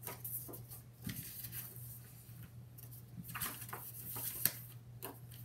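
Stiff black cardstock page being handled and turned over, giving irregular papery rustles and scrapes in two spells, over a faint steady low hum.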